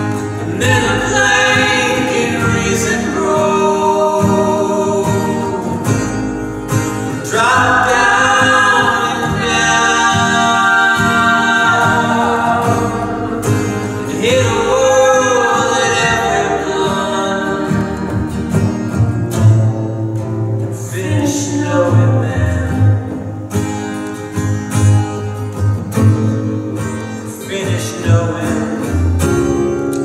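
Live acoustic folk music: a woman's and a man's voices singing long, sustained lines together over a strummed acoustic guitar and a plucked upright bass.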